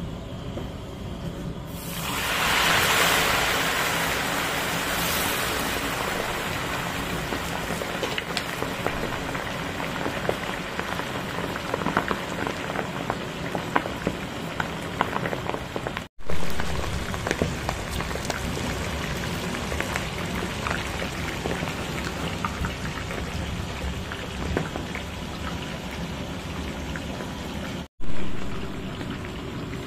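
Fish deep-frying in hot oil in a cast-iron kazan: a sudden loud hiss about two seconds in as the pieces go into the oil, settling into a steady crackling sizzle. The sound breaks off for an instant twice and comes back louder each time.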